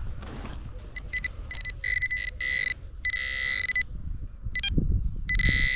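Handheld metal-detecting pinpointer sounding a steady high buzz in several short bursts, about four, as it is pushed into the dug soil and picks up metal in the hole. Low scrapes and knocks of soil being handled come in between.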